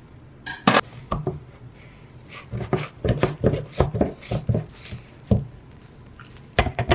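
Hard plastic knocks and clicks of a personal blender's cup and blade lid being handled and fitted together: one sharp knock about a second in, then a quick irregular run of clicks and taps, and a few more near the end.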